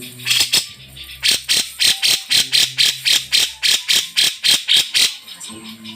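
Cucak jenggot (grey-cheeked bulbul) giving a rapid series of scratchy calls, about four a second, that stops about five seconds in.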